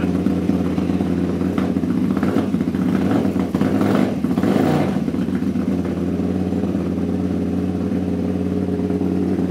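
KTM LC8 V-twin engine running during its first start and live tuning. It runs unevenly with some sharp pops from about one and a half to five seconds in, then settles to a steady idle.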